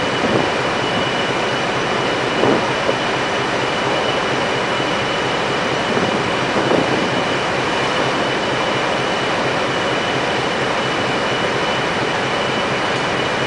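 Heavy lifting machinery running steadily: a dense, even mechanical noise with a constant high whine over it, and a few brief louder bumps.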